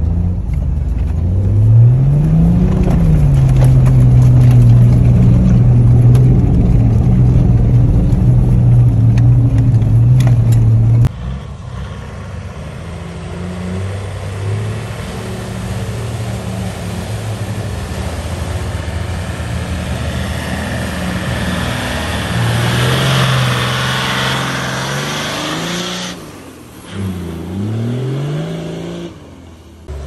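A 4WD's engine wading through a deep river crossing. At first, heard from inside the cab, the revs rise and then hold steady. Then, heard from the bank, the engine runs under the rush and splash of water pushed aside by the vehicle, with the revs rising and falling near the end.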